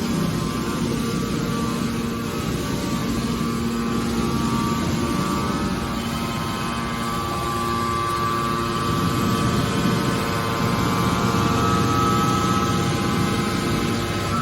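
Hydraulic scrap car baler running: a steady machine drone with several held tones that grows somewhat louder in the second half.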